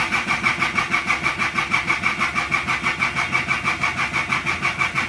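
Starter motor cranking the Hyundai Galloper's diesel engine in an even rhythm of about five compression strokes a second, with a high starter whine, without the engine catching. The owner suspects air in the fuel system after it ran low on diesel, and the battery is starting to weaken.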